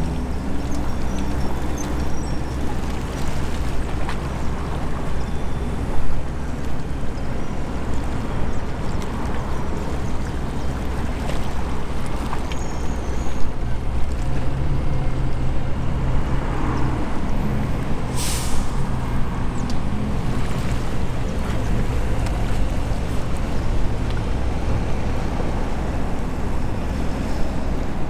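Harbour tugboat's diesel engines running with a steady low rumble and hum that grows stronger about halfway through. A short sharp hiss cuts in briefly about two-thirds of the way through.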